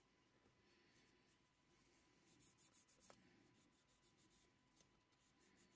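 Faint scratching of a sanding stick rubbed over filler on a plastic scale-model part, with a quick run of short strokes about two to three seconds in that ends in a small click.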